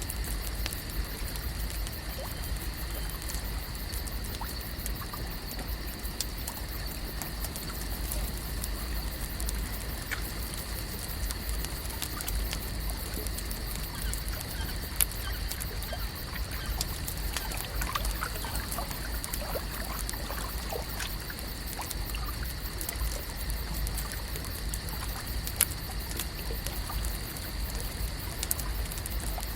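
Lakeside ambience: water gently trickling and lapping over a steady low rumble, with a constant high hum and scattered small ticks and faint chirps.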